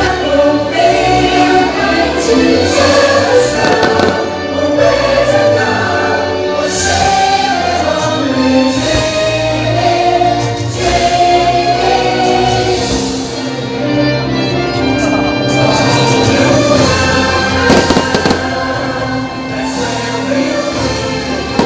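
Choral show music playing loudly, with firework shells bursting and crackling at intervals over it.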